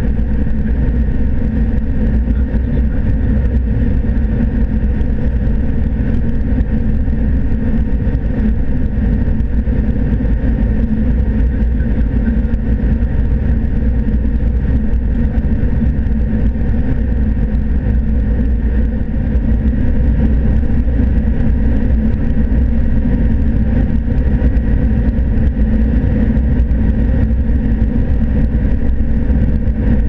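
Steady, loud drone of a John Deere S680 combine heard from inside its cab: the engine and the threshing and harvesting machinery running under load while it harvests corn.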